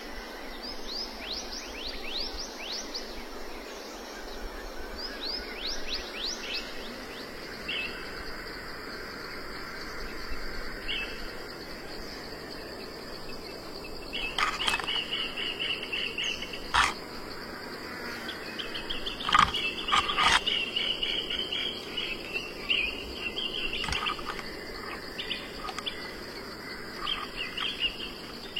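Insects and birds calling: a steady high-pitched buzz runs throughout, with quick repeated falling chirps in the first few seconds and warbling calls in the middle and later part. Several sharp clicks, the loudest sounds, come in the middle stretch.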